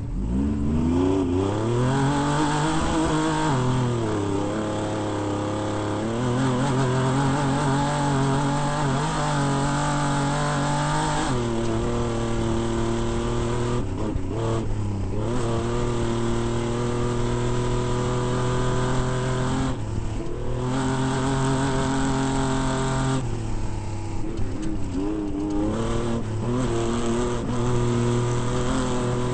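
Off-road race vehicle's engine running hard: it revs up at the start, then holds a steady, high drone. The pitch drops and breaks briefly several times, as at gear changes or throttle lifts, over a steady hiss.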